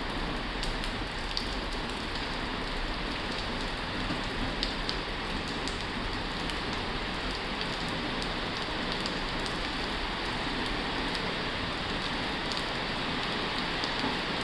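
Heavy rain drumming steadily on a tin roof, with scattered drops ticking sharply against the metal.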